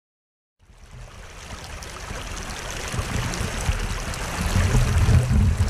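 Creek water rushing over rocks in a shallow riffle, fading in from silence about half a second in and growing louder.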